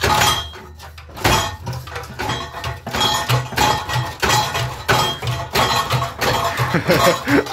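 A rusted steel exhaust pipe being wrenched and twisted free from under a car, clanking and scraping against the underbody and its hanger in a run of sharp metallic knocks, some ringing briefly.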